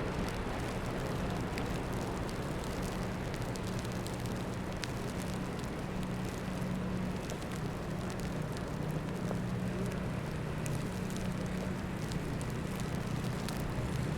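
City street traffic noise: a steady low engine hum, as from idling or slow-moving vehicles, over a constant wash of street noise, with faint scattered clicks.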